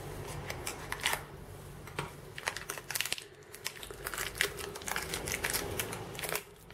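Handling noise of small packaging: irregular light clicks and crinkles as a cardboard box and a small clear plastic bag are opened and handled.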